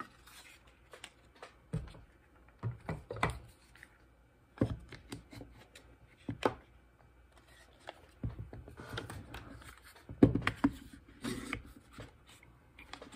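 One-handed trigger bar clamps being ratcheted tight onto boards, with wood pieces handled and set down on the bench: a string of irregular clicks and knocks, the loudest about ten seconds in.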